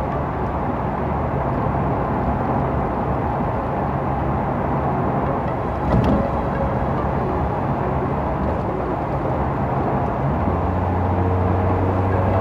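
Nissan Skyline R33 GTR's RB26DETT twin-turbo straight-six running while driving, under a steady rush of road and wind noise. A brief thump comes about six seconds in, and the engine note drops in pitch about ten seconds in.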